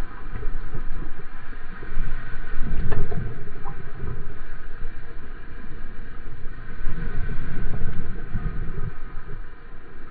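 Water rushing past and wind buffeting a camera mounted on the nose of a surfboard riding a wave: a loud, rough rumble that surges and eases, with faint steady high tones running underneath.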